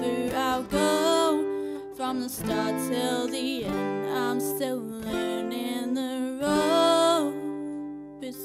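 A young woman singing a slow melody while accompanying herself on an acoustic guitar.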